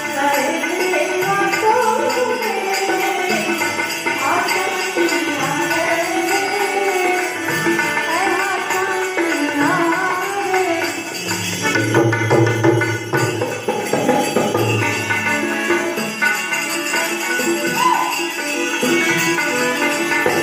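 Music with a wavering melodic line over jingling percussion like a tambourine and a hand drum, continuous and steady in level.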